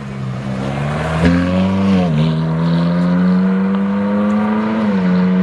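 Ferrari 458's V8 engine accelerating hard while pulling away. The engine note climbs steadily, drops sharply with an upshift about two seconds in and again near the end, then climbs again. A single sharp crack comes a little over a second in.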